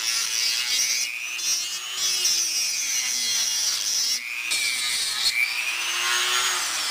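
Corded rotary tool grinding into the metal casing of a hard drive: a high motor whine with a rasping grind, its pitch sagging and recovering as the tool bites and eases off, with brief lets-up about a second in and about four seconds in.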